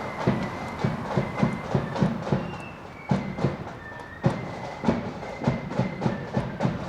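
Marching band playing on the move: drums beating a steady march rhythm of several strokes a second, with a thin, high melody line held above them.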